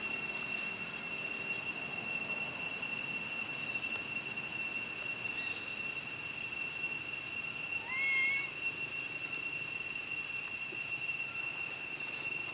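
Steady high-pitched insect chorus droning on one unchanging pitch, with one brief chirp about eight seconds in.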